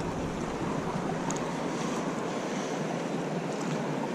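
Steady rush of the river's flowing water, with some wind on the microphone.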